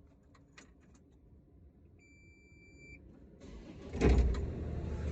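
A steady electronic beep lasting about a second, then the CAT 305 mini excavator's diesel engine cranking and catching about four seconds in, settling into steady running.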